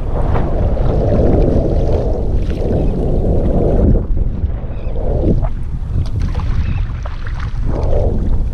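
Wind buffeting the microphone with a heavy, continuous rumble, over uneven swells of water sloshing against a kayak hull.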